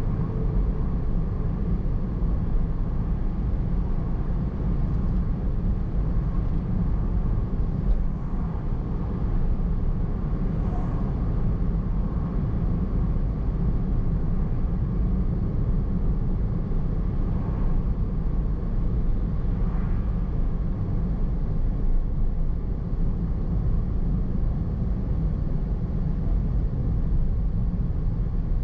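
Steady low rumble of a car driving along a road: tyre and engine noise with no clear changes.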